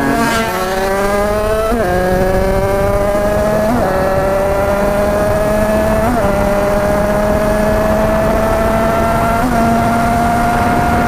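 Tuned two-stroke Derbi engine pulling up through the gears under acceleration. Its pitch climbs steadily in each gear and dips sharply at each of about five gear changes.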